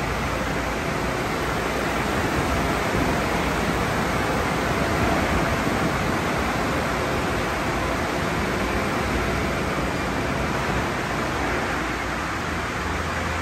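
Conveyor car wash tunnel in operation: a steady, loud rushing hiss of water spray and cloth brushes and mitter curtains working over a car.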